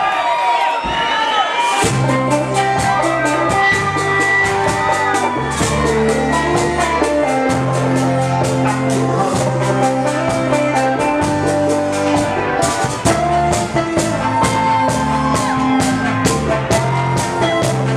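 Bachata music from a live band with bass, guitar and a voice singing. The full band and a quick, steady percussion beat come in about two seconds in.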